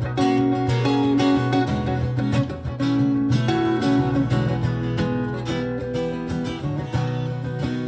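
Live guitar music: an instrumental passage of quickly picked notes over a sustained low note.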